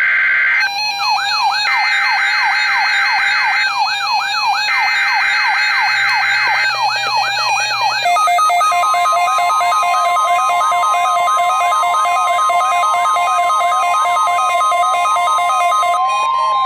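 NOAA Weather Radio weekly-test alert. The SAME data header plays in three bursts with short gaps, under a siren-like alarm from the weather radio receivers that wails up and down about three times a second. About eight seconds in, the bursts give way to a steady tone together with a beeping and a slower warbling alarm.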